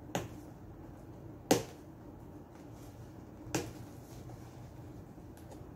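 Three sharp snaps from a small cardboard product box being worked open by hand, the second, about a second and a half in, the loudest.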